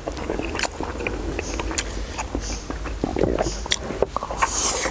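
Close-up eating sounds: chopsticks clicking against a porcelain rice bowl while a man takes in and chews mouthfuls of rice, with a short breathy hiss near the end.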